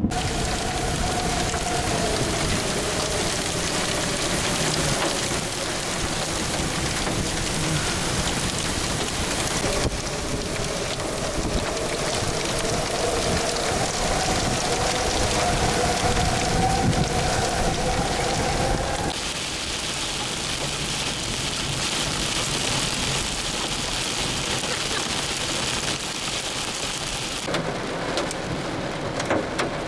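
Heavy rain in a severe thunderstorm: a loud, steady rush of rain, driven by strong wind gusts, with a low rumble under it through roughly the first two-thirds. The sound shifts abruptly a few times at cuts between shots.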